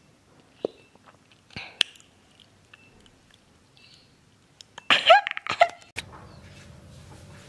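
A woman's mouth sounds close to the microphone: small lip and tongue clicks, then about five seconds in a short, loud wordless vocal sound whose pitch slides up and down. Near the end a steady low room hum takes over.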